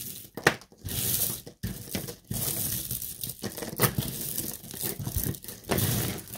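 Strands of bead necklaces and pearl necklaces clattering and rustling against each other as they are pulled from a tangled pile, with a sharp clack about half a second in.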